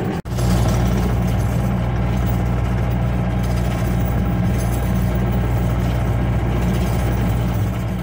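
Tracked skid loader's engine running steadily as the machine drives along, heard from inside its cab.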